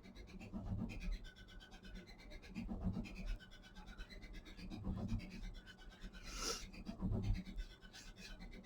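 Faint, irregular scratching and rubbing of a paintbrush spreading wet watercolour paint across paper, with a few soft knocks.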